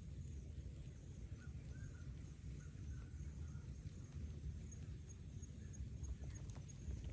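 Outdoor ambience: a steady low rumble with faint, scattered short chirps above it.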